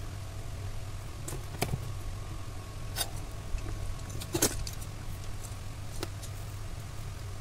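Light clicks and taps of a thin jumper wire and a soldering iron being handled on a workbench: about four sharp ticks spread out, the loudest a little past halfway, over a steady low hum.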